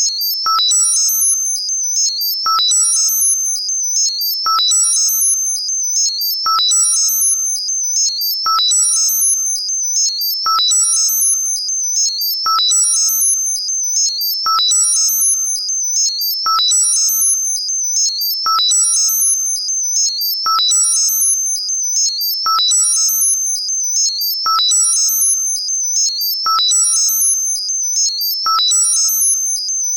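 Synthesized tinnitus-masking sound: a steady high-pitched tone with a cycle of higher electronic tones that repeats about every two seconds. A short ping near the middle of the range sounds about once a second.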